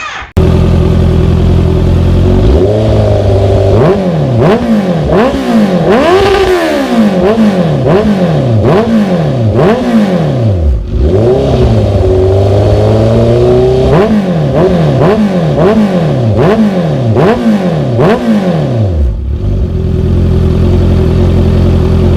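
Honda CB650F's inline-four fires up and runs through a full stainless-steel four-into-two-into-one exhaust with a carbon-fibre Shark GP 920 muffler and no dB killer fitted. It is revved in two runs of quick throttle blips, each rev rising and falling about once a second, and settles back to idle between and after them.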